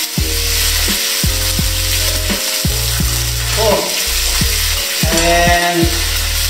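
Rump steak sizzling hard in melted butter in a hot ridged grill pan while it is basted. A steady low beat of background music runs underneath.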